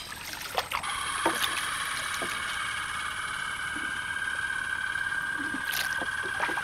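Insects buzzing, a steady high drone that starts abruptly about a second in and holds, with a few faint knocks.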